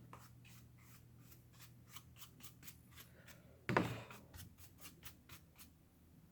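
Faint short scraping strokes, a few a second, as leftover battery adhesive is cleaned out of a MacBook Pro's battery bay, with one louder knock about three and a half seconds in.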